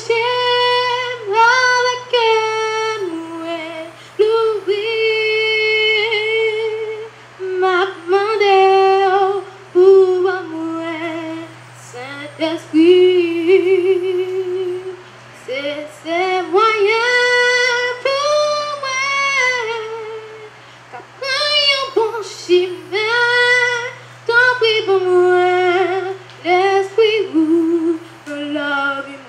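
A young girl singing solo into a handheld microphone: one voice in phrases of long held notes that slide up and down, with short breaths between phrases.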